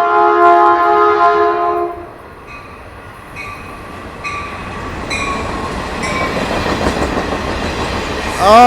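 Caltrain locomotive's air horn blowing a multi-tone chord for about the first two seconds. The approaching train follows, its rumble slowly growing louder, with faint regular clicks about once a second.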